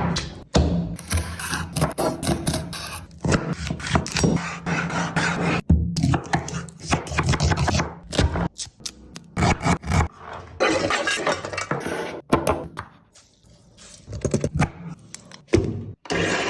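Kitchen utensils scraping and knocking against cookware in irregular bursts, over quiet background music.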